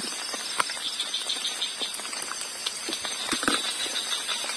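A knife slicing eggplant against a plastic plate, giving a few light clicks and taps, over a steady outdoor hiss of night insects and light rain.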